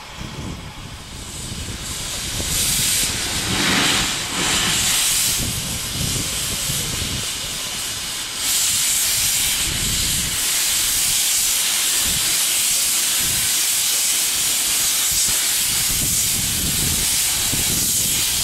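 Steam hissing loudly from the open cylinder drain cocks of The Bug, a small 15-inch-gauge steam locomotive. The hiss builds about two seconds in and grows louder again around eight seconds in.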